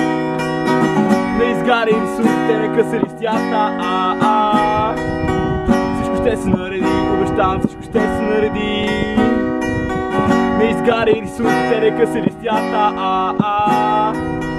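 Acoustic guitar strummed in a steady, driving rhythm, chords ringing on between the strokes: an instrumental passage of a song played live.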